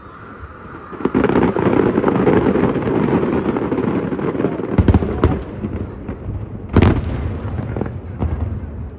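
Fireworks display: a dense crackling barrage begins about a second in, with a few sharp bangs in the second half, the loudest about two-thirds of the way through, then dies away.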